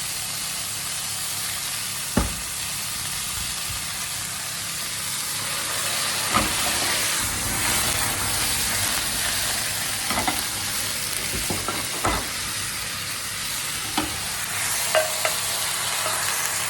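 Chicken livers sizzling steadily in a hot frying pan as they are stirred, with a spoon knocking against the pan now and then.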